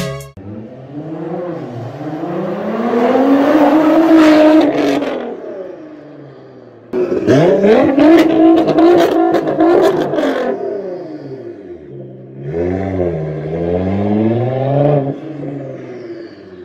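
Nissan GT-R R35's 3.8-litre twin-turbo V6 revving and accelerating hard through its exhaust. The revs climb for about four seconds and drop away with sharp crackles. About seven seconds in it comes back loud with more crackling pops, then runs up again and fades as the car pulls away.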